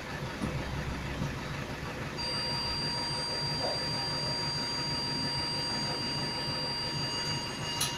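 City bus engine idling with a steady low hum while stopped. About two seconds in, a thin, steady high-pitched whine comes in and holds, then cuts off with a click near the end.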